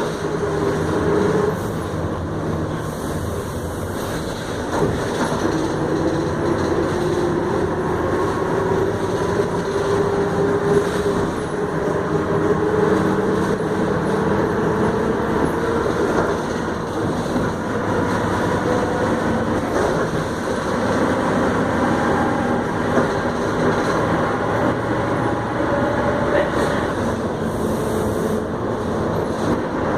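VW 17.230 EOD city bus under way, its MWM 6.12 TCE turbo-diesel running under a loud drone from the differential. The drone's pitch slowly rises and falls as the bus changes speed.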